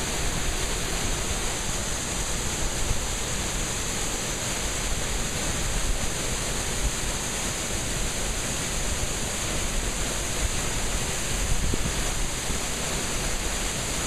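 Waterfall crashing down, a steady, loud rush of falling water.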